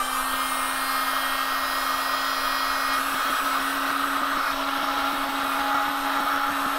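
Handheld electric heat gun running steadily: a constant motor hum under the rush of air from its fan.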